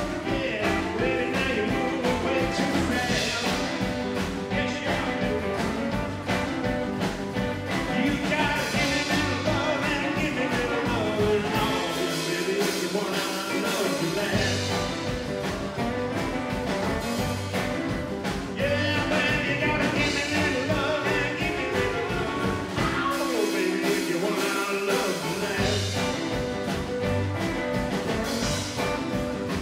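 Rockabilly band playing live, with strummed acoustic guitar and drums. The low end cuts out briefly twice, about twelve and twenty-three seconds in, in short breaks in the groove.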